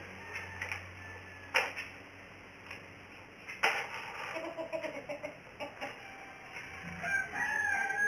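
Chickens in the background: short clucks about halfway through, then a rooster crowing near the end. Through it come a few sharp knocks and small ticks as a small bird hops about its cage.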